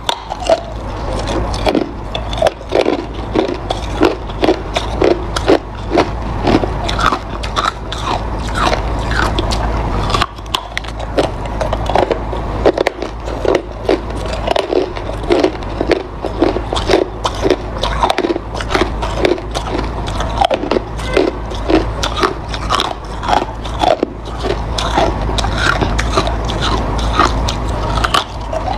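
Hard ice being bitten and crunched between the teeth, close up: a steady run of sharp cracking crunches, several a second.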